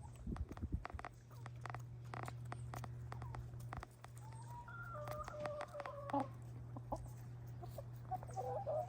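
Domestic hens pecking at food, a quick scatter of sharp taps, with a soft, drawn-out contented call about five seconds in. A steady low hum runs underneath.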